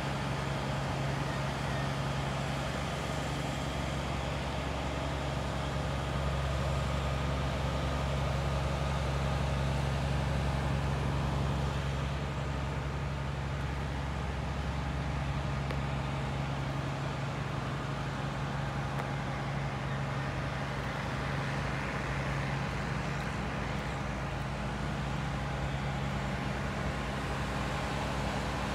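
Steady low engine hum with an even hiss over it. A deeper rumble underneath drops away about seventeen seconds in.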